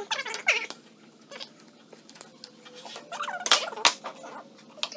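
Ratcheting plastic-pipe cutter squeaking as its blade works through plastic water pipe, with a drawn-out squeal and then two sharp clicks about three and a half seconds in.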